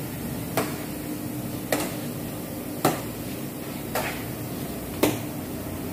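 A hard object knocking against a ceramic-coated panel, five sharp strikes evenly about a second apart, as a test of the coating's toughness. A steady low hum runs underneath.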